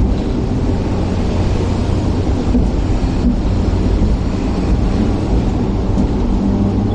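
Hong Kong electric double-decker tram running along street track, heard from inside at the front: a steady low rumble of wheels on rail with a faint electric motor hum.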